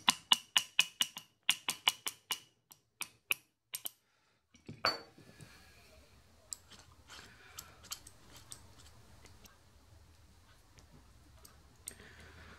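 Soft-faced mallet tapping the steel top bridge of a lathe slotter to seat it, a quick run of taps, about four a second with a slight metallic ring, for the first four seconds, then one more knock. After that come faint clicks of a hex key turning the cap screws.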